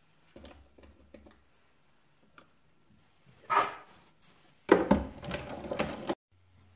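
Light taps as small metal cutting dies are set down on cardstock, then, from just under five seconds in, a loud clatter and scrape as a clear plastic cutting plate is laid over them on a die-cutting machine's platform, cutting off abruptly about six seconds in.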